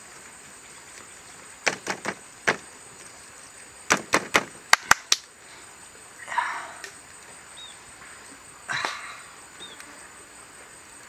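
Duck eggs clicking and tapping as they are handled and set down on a split-bamboo grill: a few sharp clicks, then a quicker run of about six, followed by two softer rustles. A steady high insect buzz runs behind.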